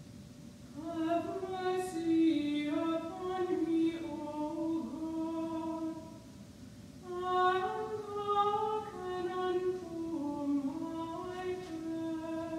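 A woman's voice chanting unaccompanied plainsong, a single melodic line moving in small steps. It comes in two phrases, with a short break about six seconds in.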